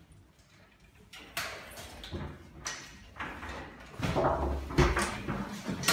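Metal walking frame knocking down on a tiled floor as a person walks with it, with shuffling steps: a series of sharp knocks about every half second to second, louder in the second half.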